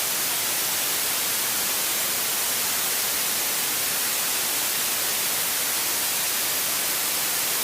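Steady static hiss on the aircraft's intercom audio feed, even throughout, with no engine tone standing out.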